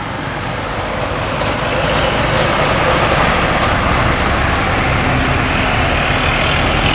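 Tour bus passing on the road: a steady diesel engine rumble with tyre and road noise that grows a little louder toward the end.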